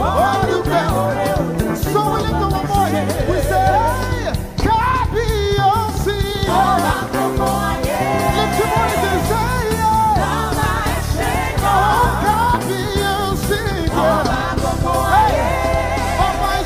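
Gospel worship music: sung melodic lines with vibrato over a band with bass and a steady drum beat.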